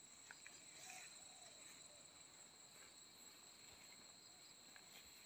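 Near silence: faint, steady high-pitched chirring of field insects, with a few faint ticks.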